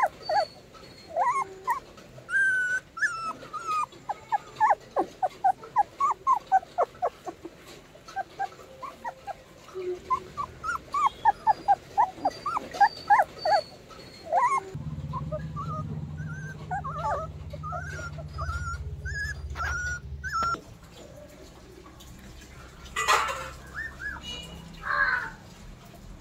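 Dachshund puppies whimpering and squeaking: many short, high calls in quick succession that die away about halfway through. A low steady hum follows for several seconds.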